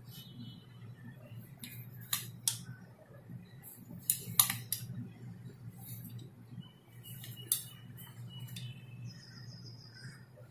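Kitchen knife cutting through thick rolled dough and tapping and scraping on a wooden chopping board, in a few scattered sharp clicks, the loudest about four seconds in.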